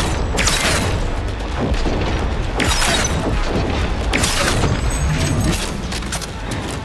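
Video game audio: background music under three heavy booming crashes, the first near the start, the next about two seconds later and the last about four seconds in.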